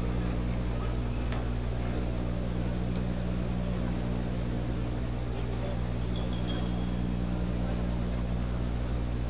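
Steady low electrical hum with a layer of hiss, unchanging throughout, with no other clear sound.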